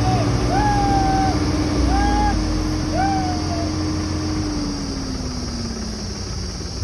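Tractor engine running steadily as the tractor works through deep mud, its revs dropping gradually over the last couple of seconds. Several short pitched calls sound over it in the first half.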